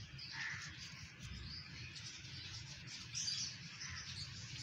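Faint bird chirps scattered through, over a low steady background rumble.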